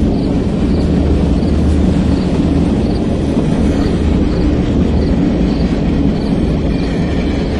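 Train running past with a steady, loud rumble and faint clicks repeating at an even pace.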